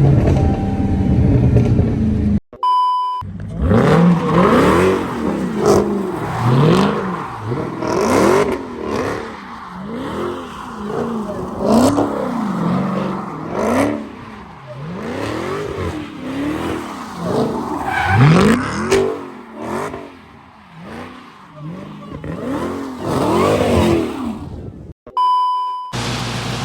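Supercharged Dodge Hellcat V8 revved up and down over and over, about once a second, each rev rising and falling in pitch. A short electronic beep comes just before the revving starts and again just after it stops.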